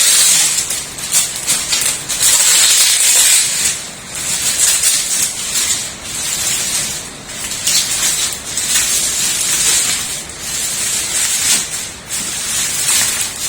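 Protective tape and plastic film being ripped off and crinkled: loud rustling and crackling that swells and dips again and again.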